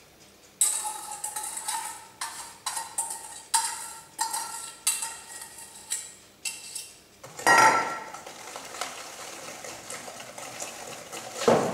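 Stainless steel bowls knocking together, each knock ringing briefly, as cream is poured from a small metal bowl into a larger one. From about two-thirds of the way in, a wire whisk beats the egg, sugar and cream mixture against the metal bowl, with a louder clank near the end.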